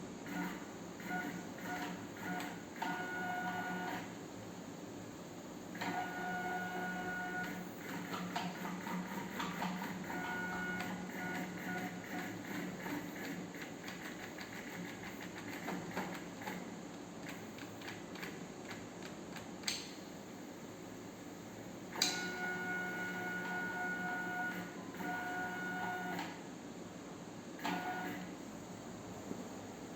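Stepper motor driving a homemade CNC Z-axis, whining with steady tones as it moves in runs of a couple of seconds, with short pauses between moves. A sharp click about two-thirds of the way in and another soon after.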